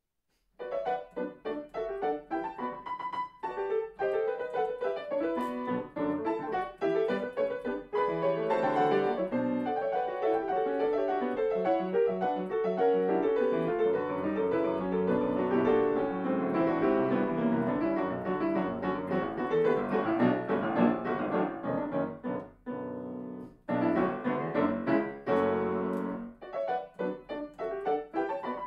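Solo grand piano playing a classical piece that begins about half a second in after silence, with dense, fast-moving notes throughout.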